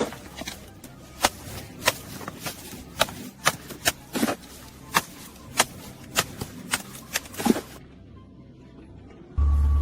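A series of sharp, irregular knocks or taps, roughly two a second, over about eight seconds. Near the end a loud, steady low hum cuts in suddenly.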